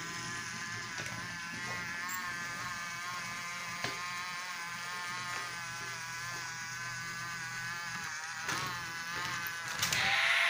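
Battery-powered Brio toy locomotive's small electric motor whirring with a steady, slightly wavering whine as it drives along wooden track. A few knocks come near the end.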